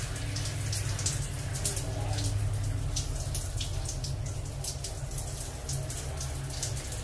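Shower water running and splashing over a wet baby monkey as it is washed by hand in a tiled shower, with many small irregular splashes.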